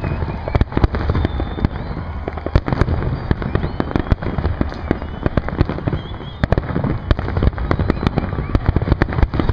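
Fireworks finale barrage: many aerial shell bursts in rapid, overlapping succession, with booms and crackling over a continuous low rumble.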